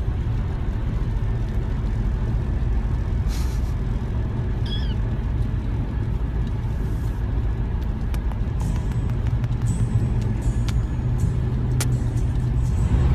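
A steady low rumble like a car on the move, with one short, high meow from a cat or kitten about five seconds in.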